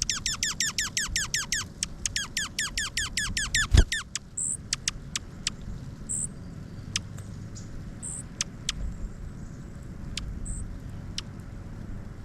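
Pileated woodpecker calling: two rapid runs of loud, evenly spaced notes, each dropping sharply in pitch, about six or seven a second. A low thump follows near the end of the second run, and then scattered sharp ticks and short high notes.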